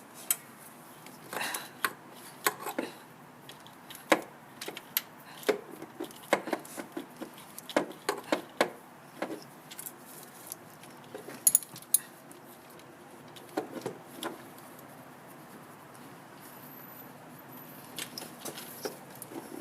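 Irregular metallic clicks, taps and clinks of hand tools and car parts being handled while a part is removed from a car's engine bay, with a quieter pause for a few seconds near the end.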